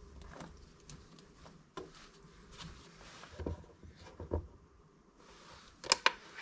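A small metal test-media clip being handled and fitted onto the post of an edge sharpness tester: scattered light clicks and taps, the loudest a pair of sharp clicks near the end.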